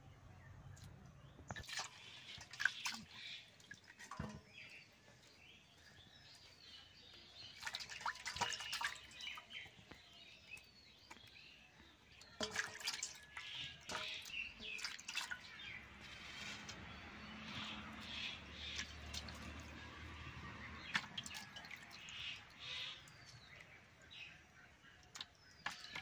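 Roasted taro being peeled and rinsed by hand in a steel bowl of water: faint, irregular splashing, dripping and scraping of skin off the corm.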